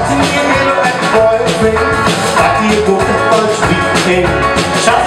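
Live rock band playing a song: a man singing into a microphone over electric guitars, bass and a drum kit.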